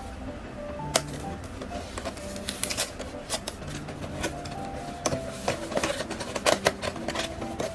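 Background music with a melody, over clicks and rustles of a blind box's packaging being handled and opened. The clicks come thickest about five to seven seconds in.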